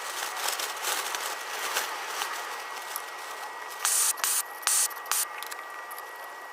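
Pressurized gas lantern burning with a steady hiss. A few short, louder hissing bursts come about four to five seconds in.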